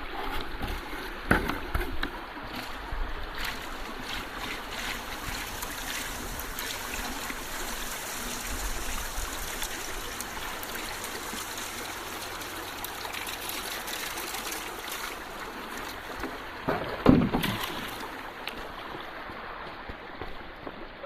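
Water swishing and sloshing in a gold pan as its material is rinsed down to look for fine gold. Two louder sudden sounds stand out, one about a second in and one late on.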